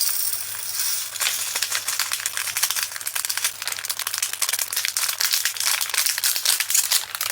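Diamond-painting drills, tiny resin beads, pouring and rattling into a container in a dense patter of little clicks, with a bag crinkling in the first second.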